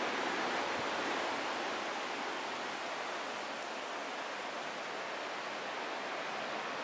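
Steady rushing background noise with no distinct events, even throughout.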